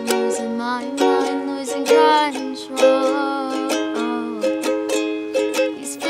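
Ukulele, capoed, strummed in a steady rhythm under a woman's singing voice holding long notes, with a rising slide about two seconds in.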